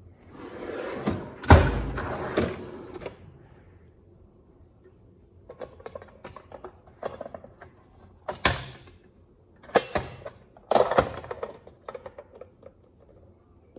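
ICON metal tool chest drawers sliding open and shut. A long sliding rumble ends in a sharp clunk about a second and a half in, then the tools inside click and clatter, with several more knocks later on.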